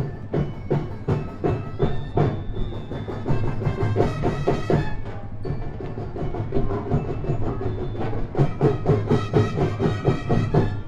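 Percussion-heavy music: rapid drum and knocking strikes in a steady rhythm, with some pitched tones over them.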